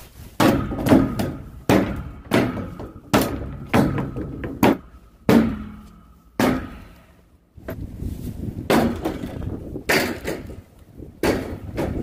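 Repeated hammer blows on a steel building frame, knocking wooden boards loose during demolition. The strikes come about one a second, with a pause around the middle, and many leave a short metallic ring.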